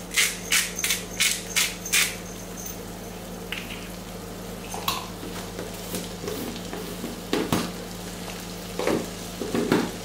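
Bacon strips sizzling in butter in a frying pan, with a wooden spatula knocking and scraping against the pan about seven times in quick succession over the first two seconds. After that there are only a few scattered stirring knocks over the steady sizzle.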